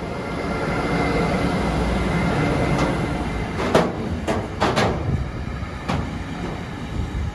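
Siemens Vectron electric locomotive passing at speed with a faint steady whine, followed by a freight train of tank-container wagons rumbling by. Several sharp clacks come from the wagon wheels in the middle.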